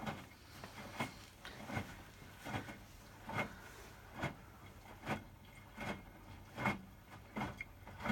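Hotpoint WMFUG 942 washing machine drum turning with a wet bed-and-bath load, the laundry and water dropping in a regular swish and thud a little more than once a second. The machine is in the wash phase of a 60° programme, just starting to heat.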